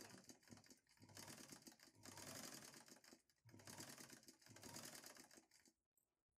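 Ordinary straight-stitch tailoring sewing machine, converted for embroidery, running and stitching through cloth held in a hoop: a faint, fast, even clatter of needle strokes in two long runs with a short break just past halfway, stopping about a second before the end.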